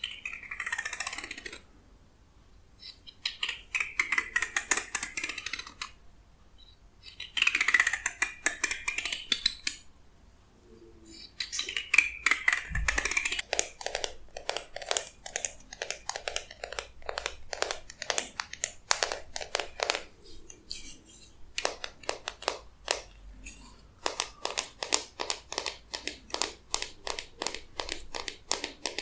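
Fingertips and nails strumming across the teeth of a peach-wood comb, giving runs of rapid ticking. There are about five runs with short pauses between them. The early runs sweep up and down in pitch, and the later ones are longer, quicker trains of even ticks.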